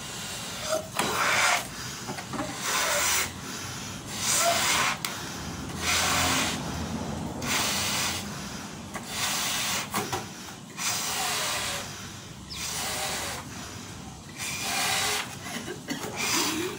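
Two people blowing up latex balloons: repeated breathy puffs of air into the balloons, each about a second long, with short gaps between.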